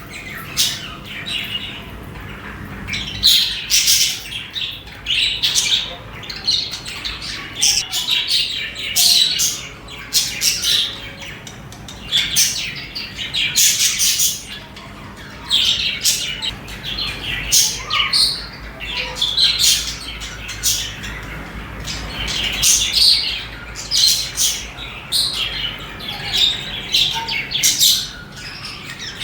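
Budgerigars chirping and chattering, a busy run of short, high calls with some harsher squawks.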